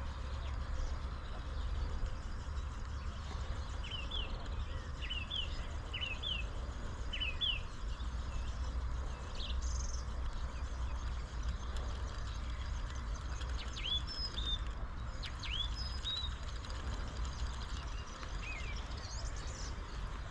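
Small birds chirping in short quick notes, a cluster a few seconds in and another about two-thirds through, over a steady low rumble.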